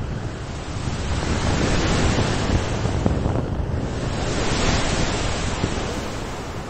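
Small Mediterranean waves breaking and washing up the sand at close range. The surf's hiss swells from about a second in, is loudest in the middle, and eases near the end, with wind rumbling on the microphone.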